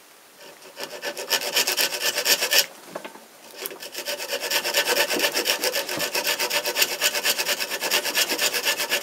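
Serrated back edge of a small homemade knife blade sawing a thin branch with quick back-and-forth strokes, a steady rasp of teeth on wood. The sawing stops for about a second near the third second, then goes on.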